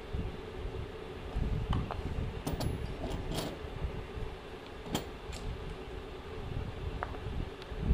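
A few light clicks and taps of steel drill bits and a chisel being handled, over a steady low background hum and some handling rumble.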